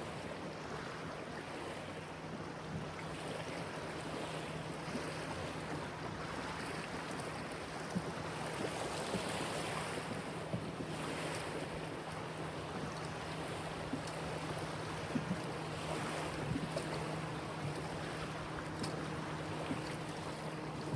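River water lapping and flowing, with wind, over a steady low hum. A few brief ticks sound through it.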